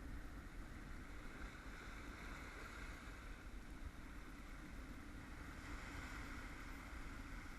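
Steady wind rumbling on the microphone over the wash of sea surf on a rocky shore.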